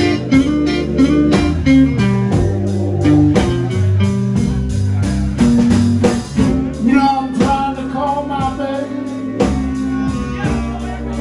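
Live electric blues band playing a slow blues: an electric guitar plays bending lead fills over bass and drums keeping a steady beat.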